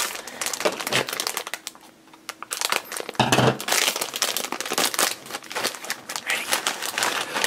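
A thin plastic candy bag crinkling and rustling in the hands as it is worked open and tipped out, in irregular bursts with a brief lull about two seconds in.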